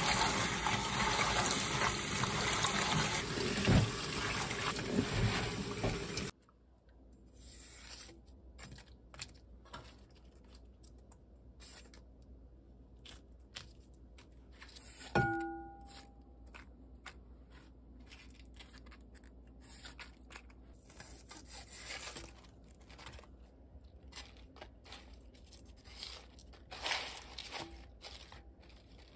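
Tap water running onto spring cabbage leaves as they are rubbed clean by hand in a bowl in a steel sink; the water cuts off suddenly about six seconds in. Then the drained leaves are cut up in a glass bowl, with faint crisp crunching and rustling and one ringing clink midway.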